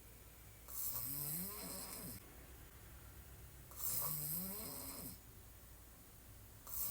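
A woman snoring hard while sleeping on her back with her mouth open: a snore about every three seconds, each lasting over a second, rising in pitch as it goes, with a breathy hiss over it. The third snore begins near the end.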